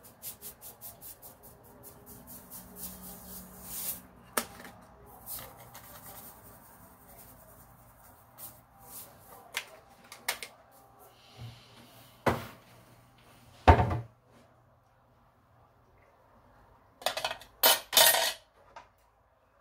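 Salt shaker shaken over a dish of grated vegetables: a quick run of rattling taps over the first few seconds that fades away. Scattered kitchen clinks and knocks follow, the loudest about 14 s in, with a short burst of clatter near the end.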